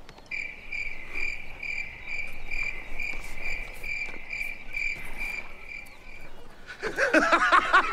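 Cricket chirping sound effect, the stock gag for an awkward silence: a single high chirp repeating about twice a second, which stops about six seconds in. A voice comes in near the end.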